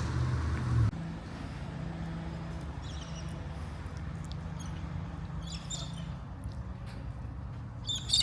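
A vehicle engine drones for about a second and cuts off abruptly, leaving a steady low hum. Over the hum, birds give short, high chirping calls three times, the last and loudest near the end.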